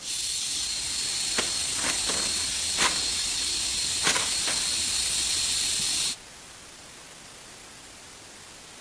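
Food sizzling in hot oil in a pan, with a few sharp pops and crackles. It starts and stops abruptly about six seconds in.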